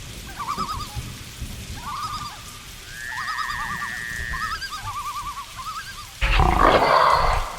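Jungle ambience of short warbling animal calls repeating about once a second, with one held whistle-like call in the middle, over a low rumble. About six seconds in, a loud animal roar breaks in and lasts just over a second.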